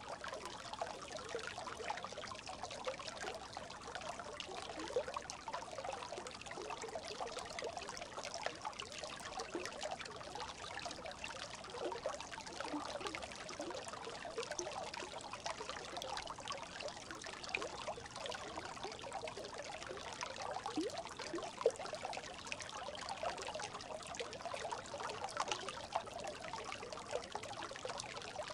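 Brook babbling: a steady, dense run of small gurgles and trickles of flowing water.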